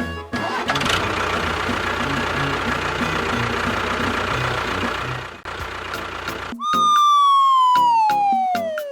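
A steady rushing noise for about five seconds. Then, after a short dip, a loud single tone glides smoothly down in pitch over about two seconds.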